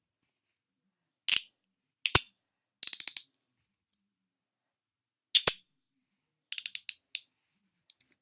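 Steel handcuffs being worked: single sharp metal clicks and quick runs of ratchet clicks as the cuff's swinging strand is pushed through the locking pawl.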